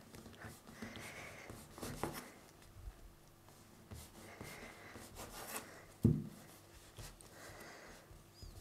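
Serrated knife sawing through a rolled stack of thin yufka pastry sheets against a wooden cutting board: faint, repeated rasping cuts with light taps on the board, and one sharper knock about six seconds in.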